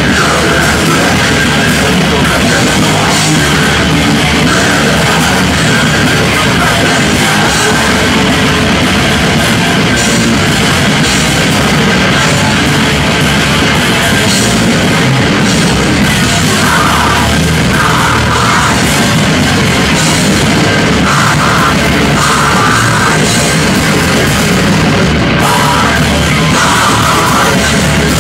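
Live d-beat crust punk band playing loud and fast, with pounding drums, heavily distorted guitar and shouted vocals.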